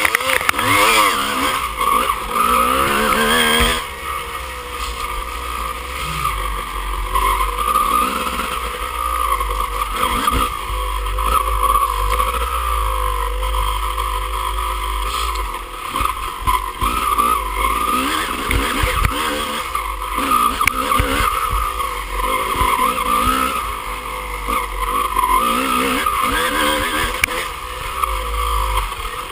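Dirt bike engine heard from on board, revving up and falling back again and again as the bike is ridden over a rough trail, with occasional knocks from the bumps.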